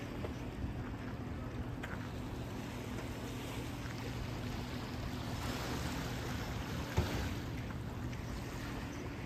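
A motor running with a steady low hum under outdoor wind and water noise, with a single short knock about seven seconds in.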